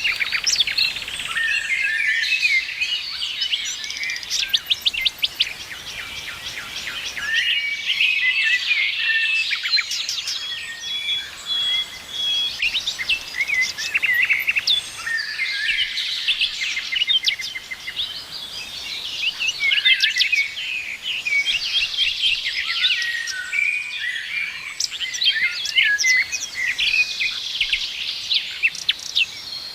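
A chorus of several songbirds chirping and trilling at once, with overlapping calls and quick rattling trills.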